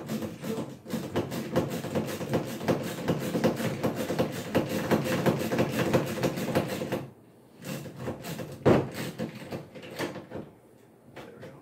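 Hand-cranked drill boring a hole through a plastic kayak hull: a fast, even rasping for about seven seconds, then a few shorter spells of cranking.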